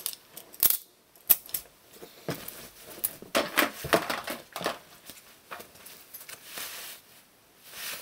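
Balisong (butterfly knife) handles clacking in a run of irregular, sharp metal clicks, with clothing and handling rustle close to the microphone.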